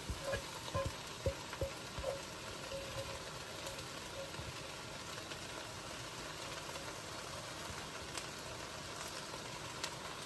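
Beaten eggs sizzling as they fry in a hot pan of rice, a steady hiss, with a few light knocks in the first two seconds.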